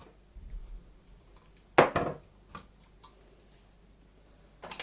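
A sharp metal clunk about two seconds in, then a few lighter clicks and rattles, as a floppy drive is worked free of the steel drive bay of a desktop PC case.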